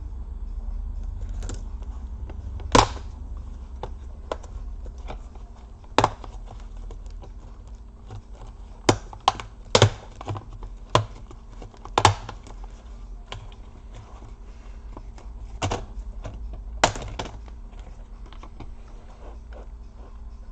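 Sharp plastic clicks and snaps, about ten at irregular intervals, as the clips of a laptop's plastic cover are worked loose. A low steady hum underneath.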